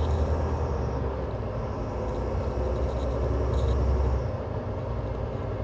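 Semi truck's diesel engine running, heard from inside the cab as a steady deep rumble that eases off about four seconds in.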